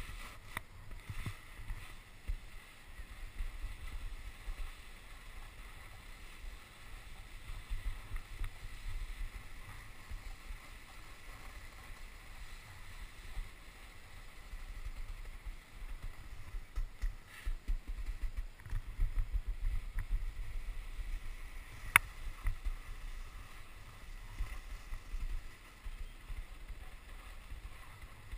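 Snowboard sliding over slushy snow, a steady uneven swish, with wind buffeting the GoPro's microphone as a low rumble that comes and goes. A single sharp click about 22 seconds in.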